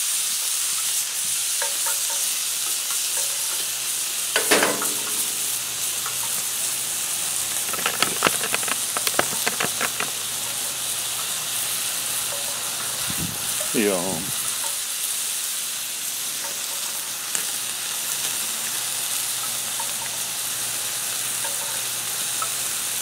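T-bone steak sizzling on a hot cast iron griddle pan, just turned onto a fresh hot part of the pan: a steady frying hiss. A quick run of sharp clicks comes about eight seconds in.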